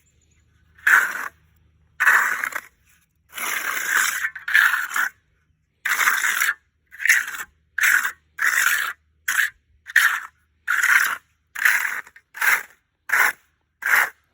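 A hand trowel scraping over wet sand-mix concrete topping in about fifteen strokes, smoothing a patch on a concrete slab. The strokes grow shorter and quicker toward the end.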